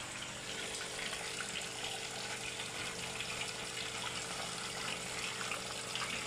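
Pumped water pouring in a steady stream from a PVC pipe outlet into a pond filter tub filled with filter media, splashing continuously, with a steady low hum underneath.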